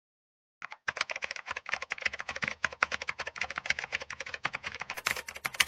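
Rapid, irregular keyboard typing clicks, many strokes a second, starting about half a second in.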